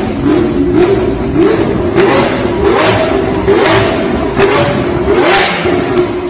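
Supercar engine with short, open exhaust pipes being blipped repeatedly. A sharp crack from the exhaust follows each rev, about seven in all, as it spits flames: backfire pops from fuel burning in the exhaust.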